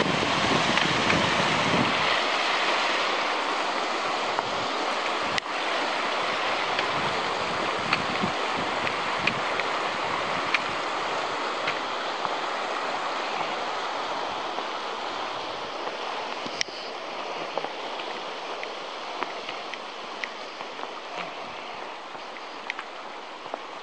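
Kananaskis River running shallow over rocks: a steady rush of water that slowly grows fainter. Wind rumbles on the microphone for the first two seconds or so.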